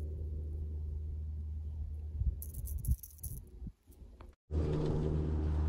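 The last notes of a guitar music track die away over a low hum. About halfway through comes a brief high jingling rattle, then a short near-silent gap, and then a steady low rumble of wind on the microphone.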